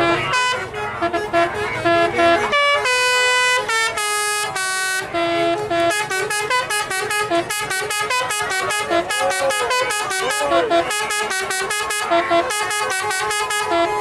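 Bus 'telolet' multi-tone musical horn of the Basuri type playing a fast tune, mostly quick short notes, with a few long held notes about three to five seconds in.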